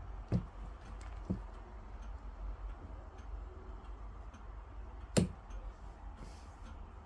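Faint ticking of a wall clock under a low steady hum. Three short low thumps from hands moving the doll and phone come about a third of a second, one and a third seconds and five seconds in; the last is the loudest.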